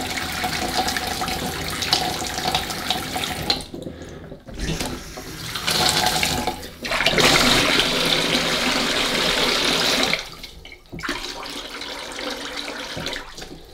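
Water running from a quarter-turn kitchen tap into a stainless steel sink and a plastic washing-up bowl: the first flow after the supply valves are reopened on freshly replaced tap valves. The flow drops away briefly about four seconds in and again near eleven seconds, and runs strongest in between.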